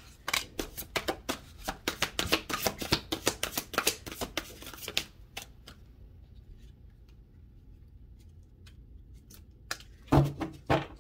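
Deck of oracle cards being shuffled by hand, a quick run of card-on-card flicks for about five seconds. Then comes a quieter stretch with a few scattered card ticks, and a couple of louder knocks near the end as a card is drawn and laid down.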